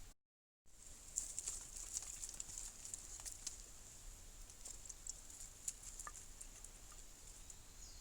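Sparse light clicks and small rustles over a faint steady hiss, after a brief total dropout near the start.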